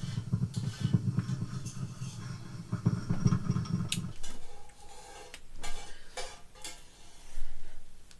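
A low buzzing hum that cuts off about four seconds in, and light knocks and clatter of small objects being handled, with sharp clicks scattered through.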